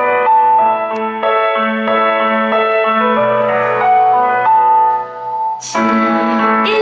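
Piano accompaniment playing the slow intro of a pop ballad, single notes and chords changing every half second or so, with no singing yet. There is no pianist on stage, so the piano is a backing track played through the room's speakers.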